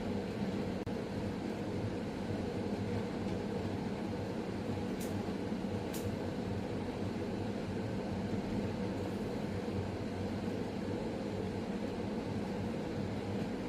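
Steady low mechanical hum of room machinery, with two faint clicks about five and six seconds in.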